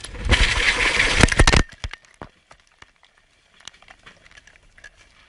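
Phone recording of a violent crash: a loud roaring rush full of rapid clattering impacts that cuts off abruptly a little under two seconds in. After that come only faint scattered ticks and rustles, as the phone lies in vegetation.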